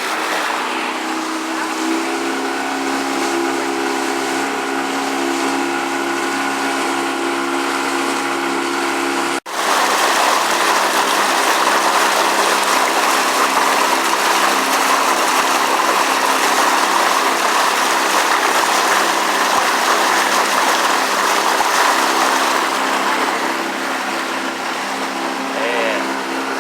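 A small tour boat's motor running steadily, with a louder rushing hiss joining after a brief cut about nine and a half seconds in.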